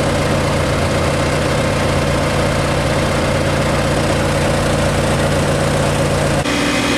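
Iseki TA-C55 crawler tractor's diesel engine running steadily, a constant hum. The sound changes abruptly about six and a half seconds in.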